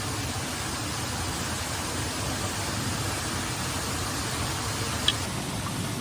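Steady heavy rain in the rainforest, an even hiss, with a single sharp click about five seconds in.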